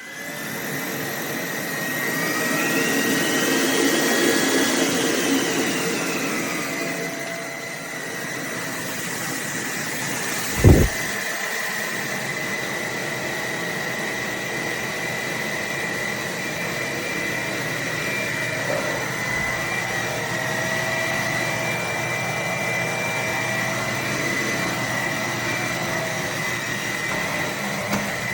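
Roborock H60 Ultra cordless stick vacuum running, a steady motor whir with a high whine; the pitch sweeps up and down in the first few seconds, and there is a single low thump about eleven seconds in.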